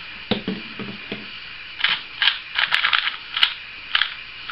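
Plastic clicking and clacking of a MoYu LingPo 2x2 speed cube being turned quickly by hand, in rapid bursts from about two seconds in, with a few sharp clicks; its turning is much noisier than a Dayan's.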